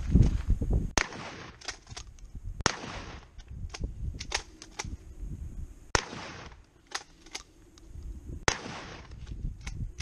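12-gauge shotgun firing repeated shots at a burning microwave: a heavy blast right at the start, then single shots about 1, 3, 6 and 8.5 seconds in, each with a short echo.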